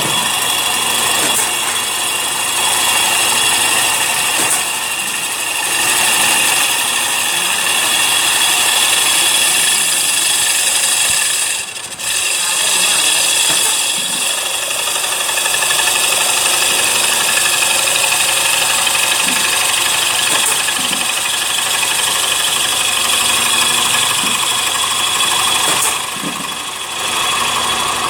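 CNC wood lathe running while it turns a wooden plate: a steady machine whine and hiss, dipping briefly about twelve seconds in and again near the end.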